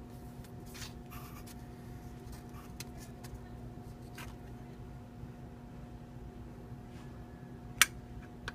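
Hands handling small plastic sealed lead-acid battery cases and a flat plastic cap on cardboard: light rubbing and scraping with scattered small clicks, and one sharp click near the end. A steady low hum runs underneath.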